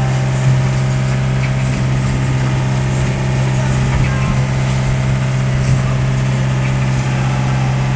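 A sailboat's inboard engine running steadily, heard from inside the boat's enclosed cockpit as a constant low hum with an even drone.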